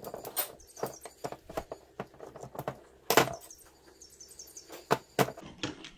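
Sharp clicks and clinks of small metal parts and a screwdriver being handled while a Toyota 1UZ-FE idle air control stepper motor is taken apart, the loudest about three seconds in and near the end. Birds chirp faintly in the background.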